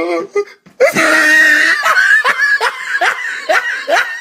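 A boy laughing hard: a loud shrieking laugh about a second in, then a run of short rising laughs, about three a second.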